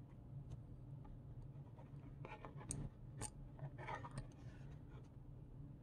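Faint handling sounds of two glass dip pens and a card insert: scattered light clicks and rustles, with two sharp clicks near the middle, over a steady low hum.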